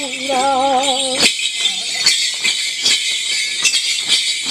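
Traditional chant-and-dance music: one voice holds a wavering sung note for about a second. Then sharp metallic jingling strikes in a steady beat, about two or three a second, over a continuous high jangle of bells.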